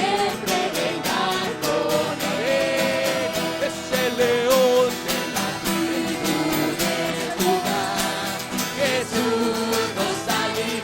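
Worship song sung by a group with a strummed acoustic guitar, a steady beat throughout.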